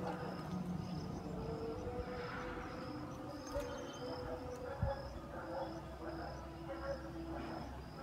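Evening bird-roost ambience: many birds calling at once in a loose chorus, with a high chirp repeating about three times a second, over a steady low hum of distant traffic.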